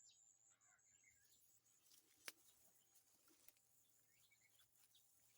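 Faint, scattered bird chirps, with a high, rapidly pulsing trill in the first second or so and a single sharp click about two seconds in.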